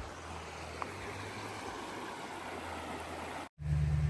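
Steady rushing of a flowing stream over a faint low hum. Shortly before the end the sound cuts out for an instant, and a louder, steady low engine hum takes over.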